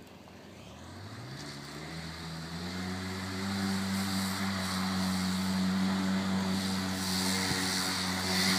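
Polaris RZR side-by-side's engine pulling hard up a steep dirt hill climb: its pitch rises over the first couple of seconds, then holds steady while it grows steadily louder as the machine comes closer.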